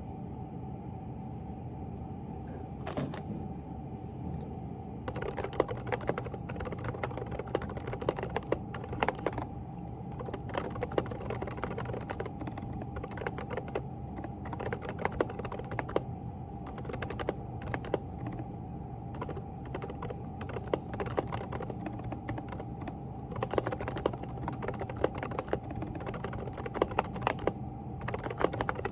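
Typing on a Groovestone GV10 keyboard with hand-lubed silent Coral switches (38 g): a few single key presses, then fast continuous typing from about five seconds in. A steady hum runs underneath.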